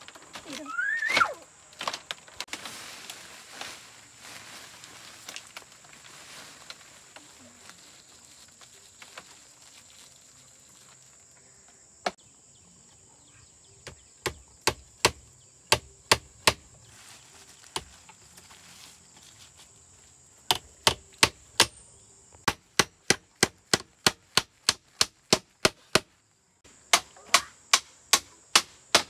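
Chopping on wood: sharp strikes in quick runs of about three a second, starting partway through, over a steady high insect drone.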